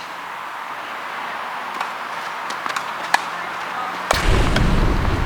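A few sharp tennis ball impacts, racket hits or bounces, over a steady hiss, then a loud low rumble starting about four seconds in.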